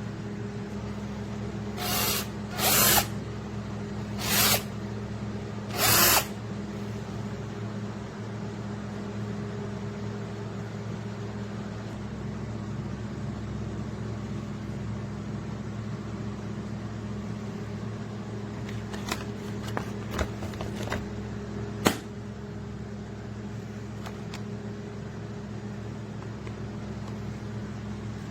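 8V cordless drill run in four short bursts, spread over about four seconds near the start. Later come a few light clicks and one sharp snap, all over a steady low background hum.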